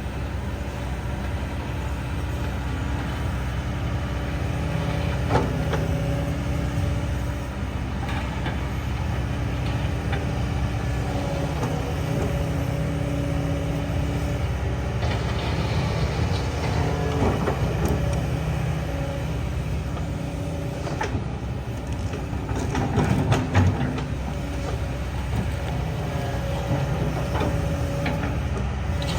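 Kobelco excavator's diesel engine running under working load, its pitch shifting up and down as the machine works, with a few metallic knocks now and then.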